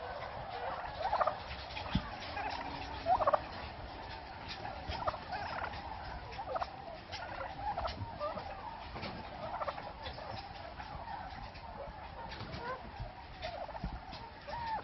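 A flock of domestic turkeys gobbling, many short calls overlapping. The loudest come about a second, two seconds and three seconds in.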